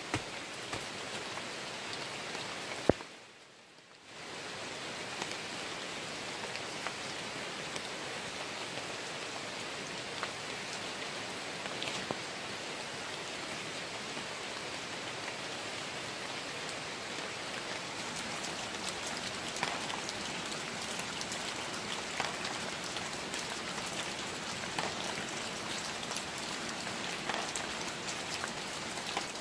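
Steady rain falling on forest foliage, a constant hiss with many small drops ticking on the leaves. A sharp click about three seconds in, after which the sound briefly drops away and then returns.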